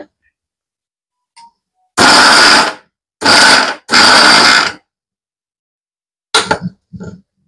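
Indian mixer grinder (mixie) pulsed on and off in three short bursts of under a second each, grinding dry-roasted curry leaves and tamarind into powder. A few short knocks near the end.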